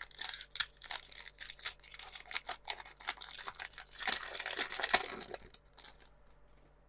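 Foil wrapper of a Pokémon card booster pack being torn open and crinkled: a dense run of crackling and tearing, loudest about four to five seconds in, dying away about a second before the end.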